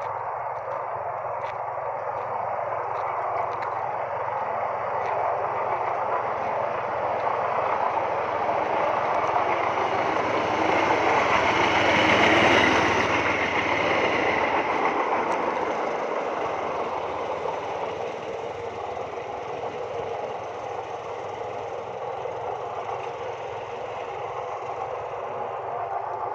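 Freight train of flat wagons loaded with concrete sleepers rolling along the track, its wheels running on the rails in a continuous noise. The noise swells to its loudest about halfway through, then eases off.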